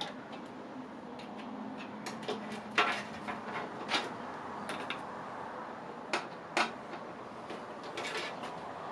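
Scattered light clicks and knocks of small metal hardware and tools being handled during PC disassembly, over a steady background hum; the sharpest knocks come about three and four seconds in and twice more a little later.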